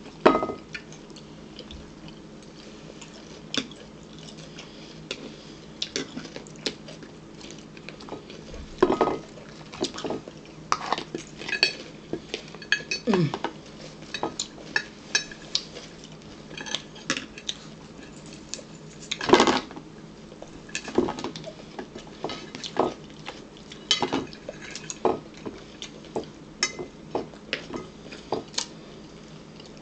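Forks clicking and scraping against bowls as people eat, among them a green plastic bowl. The clicks come irregularly throughout, and the loudest clatter comes about nineteen seconds in.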